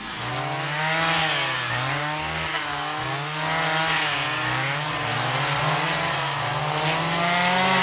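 Small two-stroke engine of a handheld power tool running, its pitch repeatedly dipping and rising again every second or so.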